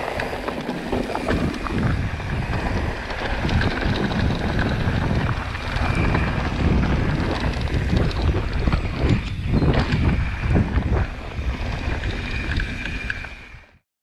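Mountain bike descending a dirt trail: wind buffeting the microphone, tyres rolling over dirt and the bike rattling over bumps. The sound cuts off abruptly near the end.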